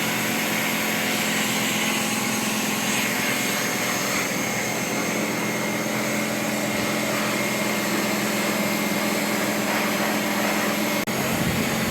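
Pressure washer running steadily, a constant motor hum under the hiss of the water jet, with a momentary break near the end.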